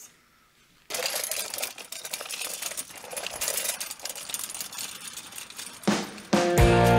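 Folding wagon's wheels rolling over a concrete sidewalk, a dense rattling clatter of small clicks that starts about a second in. Rock music with guitar comes in near the end.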